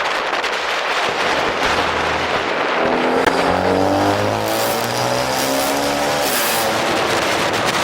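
2018 Honda Accord 2.0T's turbocharged four-cylinder, exhaust running through a catless downpipe, accelerating under a rush of wind and road noise. Its note climbs steadily from about three seconds in, then falls back near the end.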